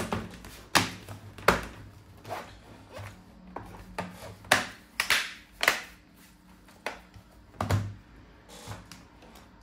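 Plastic bottom cover of a Lenovo V14-ADA laptop being pressed home, its clips snapping in with a run of sharp, irregular clicks and knocks, about eight of them, the loudest about one and a half seconds in and again between four and six seconds in.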